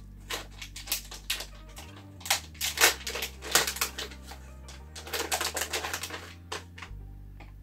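Plastic snack packet crinkling and rustling as it is torn open and rummaged through for sweets, in irregular clusters of sharp crackles.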